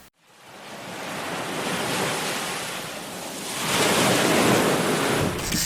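Rushing wind and water noise, wind buffeting the microphone. It fades in from a brief silence and grows louder about three and a half seconds in.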